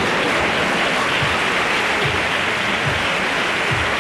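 Theatre audience applauding, with a low drum beat under it about once a second.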